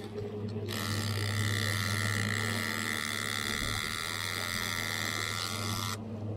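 Conventional trolling reel buzzing steadily with its clicker as line pays out behind the moving boat, starting about a second in and cutting off sharply near the end. The Evinrude outboard hums underneath.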